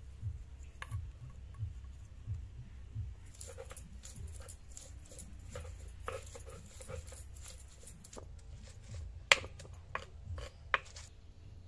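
A hand-worked stone grinding slab (sil-batta) crushing garlic cloves: a dense run of stone-on-stone clicks and scrapes, with three sharp, louder knocks near the end. Soft low thumps come before it, in the first few seconds.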